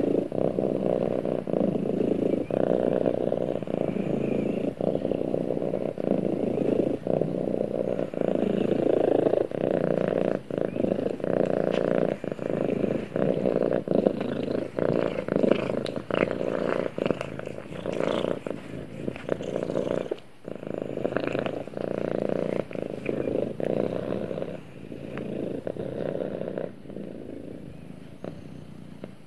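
Orange tabby cat purring steadily and closely while its head is stroked. The purr drops away for a moment about twenty seconds in and grows quieter near the end.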